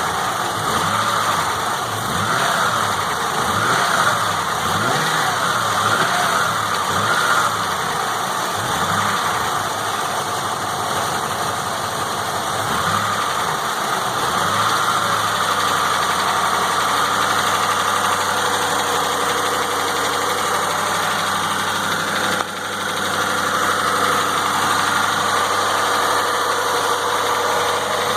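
A newly installed engine running at and just above idle, its speed wavering for the first half and then holding steady. The owner reports that it ticks right above idle.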